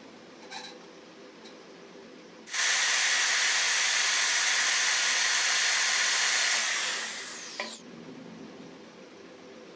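A small electric blower switches on suddenly and runs with a steady loud rush of air for about four seconds. It is then switched off, and its pitch falls as it winds down.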